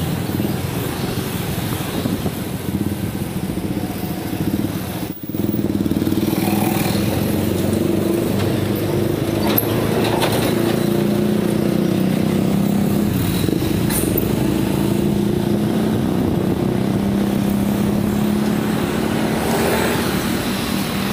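Motorcycle engine running steadily under way, with road noise. The sound drops out sharply for a moment about five seconds in.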